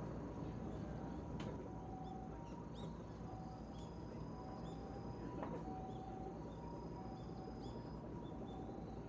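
Small birds chirping faintly in short calls over a steady low rumble of outdoor background noise.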